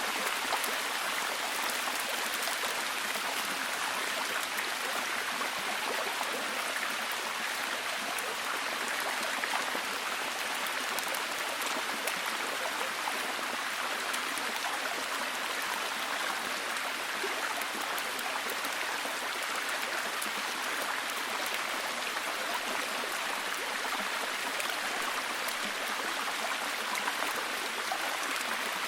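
Steady heavy rain, an even hiss with fine scattered drop ticks and no change in level.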